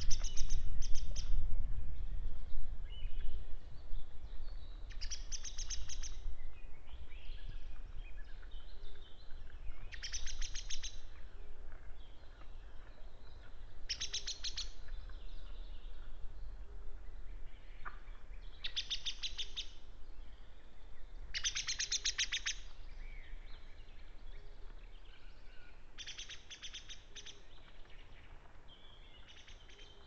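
Male long-eared owl giving faint, low single hoots, evenly spaced about every two and a half seconds, under a songbird repeating a short, high trilled song every few seconds. A low rumble is loudest at the start and fades away.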